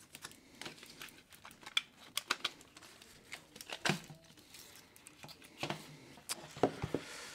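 Handling noise as a 3.5-inch hard drive is worked out of a metal external drive enclosure: irregular clicks and knocks of metal parts, with crinkling of adhesive foil tape.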